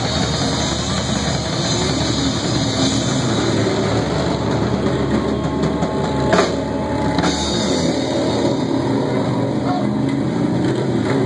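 Live rock band playing loudly: electric guitar sliding up and down in pitch over drums, and the deep bass drops out about two-thirds of the way through.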